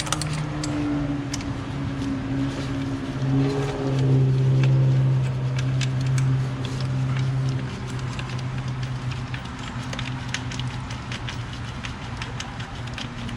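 A steady low engine-like hum runs throughout, peaking about four to seven seconds in, with frequent light metallic clicks and clinks of hand tools and parts being handled.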